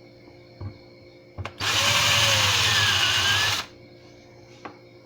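Power drill spinning a homemade lead roll crimper against the mouth of a 12-gauge shotgun shell, rolling the crimp closed, in one burst of about two seconds whose whine rises and then falls as the trigger is squeezed and let off. A couple of light clicks come before it and one after, from handling the shell and crimper.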